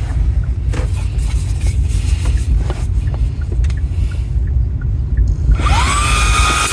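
A low rumble with small scattered knocks. About five and a half seconds in, the HOTO handheld car vacuum's motor starts: a whine rises quickly, then holds at a steady high pitch under a strong rush of air.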